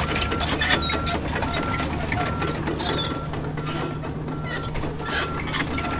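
Mini excavator's diesel engine running steadily while its warning alarm beeps over and over, roughly three short beeps every two seconds, with some mechanical clattering.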